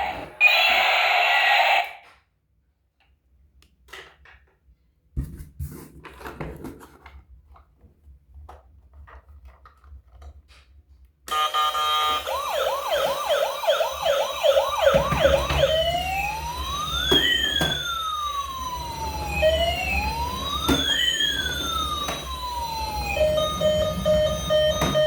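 Battery-powered toy emergency vehicle's electronic siren. A fast yelp of quick rising sweeps comes first, then a slower wail rising and falling twice, then a run of steady repeated electronic tones near the end, with a low rumble underneath. Before the siren starts there is a loud electronic sound that cuts off about two seconds in, then several seconds of near silence with a few light clicks of handling.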